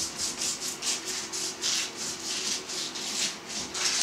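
A kitchen knife sawing back and forth through a dry-cured pork neck (capocollo), a quick rasping stroke about four times a second.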